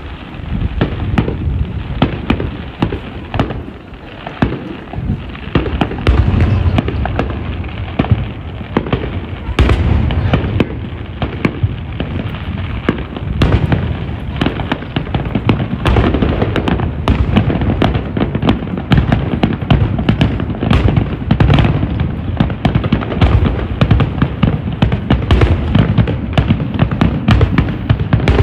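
Aerial firework shells bursting in rapid succession, a steady run of sharp bangs and crackles with heavier deep booms about six, ten and fourteen seconds in.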